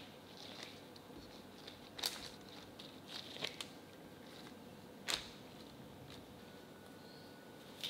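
Cookie dough balls being set down on a parchment-lined baking tray: soft rustling of parchment paper and disposable gloves, with a few short sharp ticks, over faint room tone.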